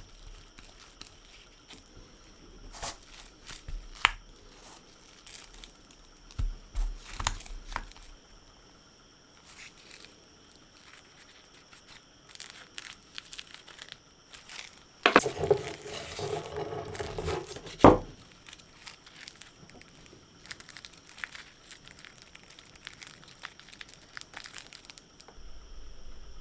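Workbench handling sounds: scattered small clicks and knocks, with about three seconds of dense rubbing or scraping noise in the middle that starts and ends with a sharp click.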